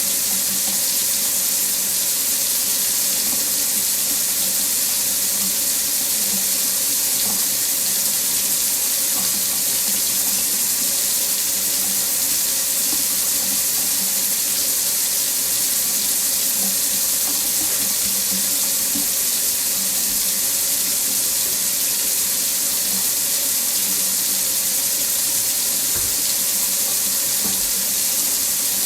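Water tap running steadily into a sink, a constant even splashing hiss.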